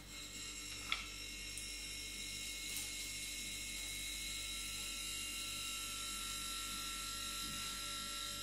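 Steady low electrical hum, with one light click about a second in.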